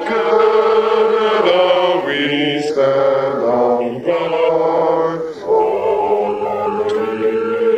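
A small group of people singing slowly together in a chant-like way, with long held notes that change pitch every second or so.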